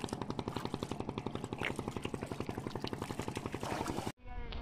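A small engine running steadily with a fast, even pulse of about ten beats a second; it cuts off abruptly near the end.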